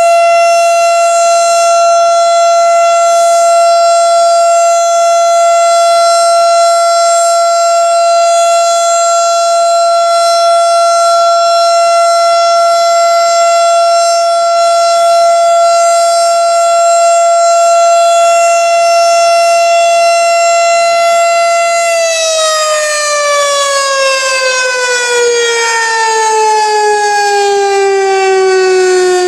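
Federal Signal STH-10 outdoor warning siren sounding a steady single-tone alert during a monthly test. About three-quarters of the way through, it winds down, its pitch falling steadily.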